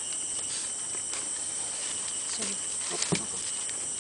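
Steady, high-pitched chorus of insects, with a few faint clicks about three seconds in.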